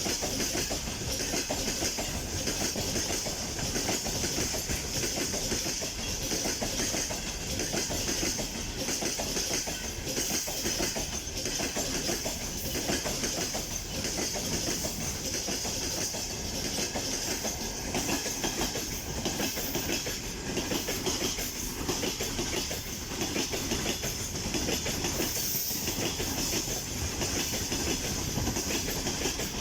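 Freight train rolling past at steady speed: the wagons' wheels clatter continuously over the rail joints, with a steady high hiss over the top.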